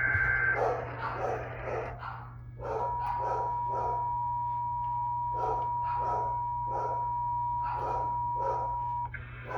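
Emergency Alert System tones from an FM radio's speaker. A SAME header data burst ends just after the start; then the steady two-tone EAS attention signal sounds from about three seconds in until near the end, where another data burst begins. Over the tones a dog barks repeatedly, about twice a second.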